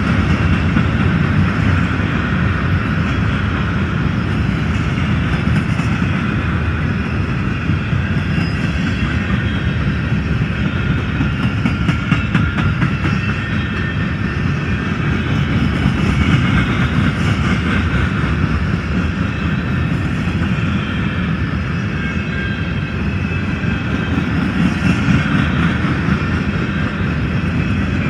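Freight train's gondola cars rolling past, a steady noise of steel wheels running on the rails.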